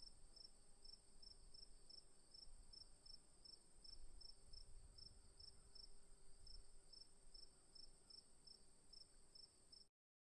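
Crickets: a steady high trill with an even chirping of about three chirps a second over it. The sound cuts off suddenly near the end.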